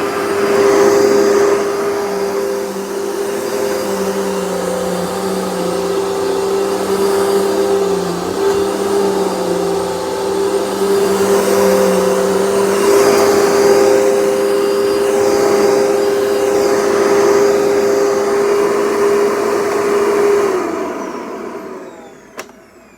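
Dirt Devil Featherlite upright vacuum cleaner running with a steady motor whine. Near the end it is switched off and the motor winds down, followed by a single click.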